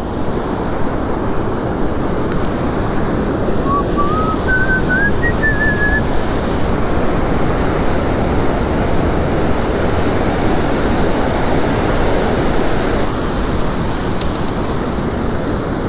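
Ocean surf breaking and washing up a sandy beach, a steady rush. A short rising chirp sounds about four seconds in.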